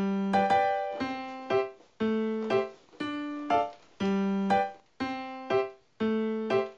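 Background music: a light keyboard tune with a piano sound, its notes struck in an even rhythm of about one beat a second and dying away between beats.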